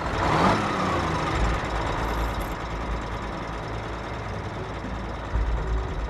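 Semi-truck diesel engine running in the cab, with a sudden loud surge just after the start and a tone that slowly falls over the next couple of seconds, then a steady run.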